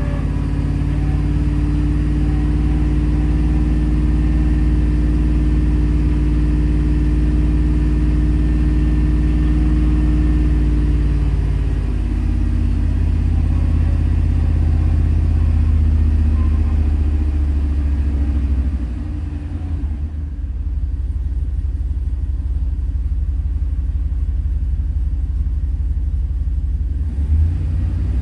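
A 2001 truck's 5.3 L LS V8 running with a misfire. It runs steadily, with a change in its note about twelve seconds in, and for several seconds past the middle only the low rumble is left.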